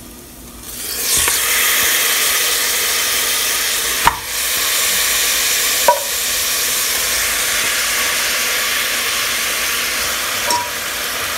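Raw mutton pieces hitting hot oil with ginger-garlic paste in a pressure cooker: a steady sizzling hiss that starts about a second in as the meat goes in, with two sharp knocks against the pot a couple of seconds apart.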